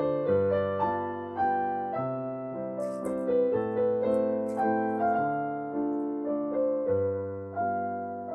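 Background solo piano music: a slow melody of single notes over held chords, each note struck and fading away.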